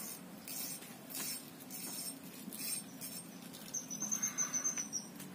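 Fishing reel being cranked to bring in a hooked fish: a run of short scratchy strokes, then about four seconds in a high thin whirring in rapid pulses for a little over a second.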